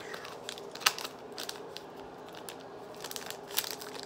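Sweet wrappers crinkling and crackling as they are handled and opened, with irregular small crackles and one sharper crackle about a second in.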